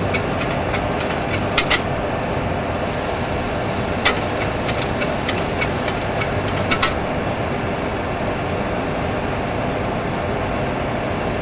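Steady cockpit noise of a Boeing 737 Classic flight simulator in a climb at climb thrust: a continuous engine and airflow rush. A few sharp clicks break it, about 2, 4 and 7 seconds in.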